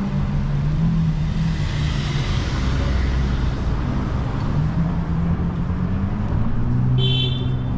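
Street traffic: car engines running low and steady, with the tyre hiss of a car passing about two seconds in. A brief high squeak comes near the end.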